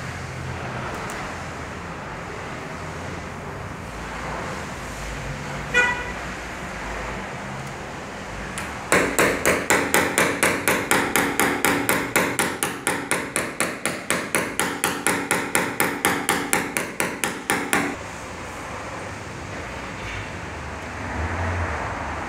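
Paintless dent repair knockdown: a small hammer striking a punch held against a car's steel roof panel. The taps come in a rapid, even run of metallic strikes, about four to five a second, for roughly nine seconds starting about a third of the way in. A single ringing clink comes a few seconds before the run.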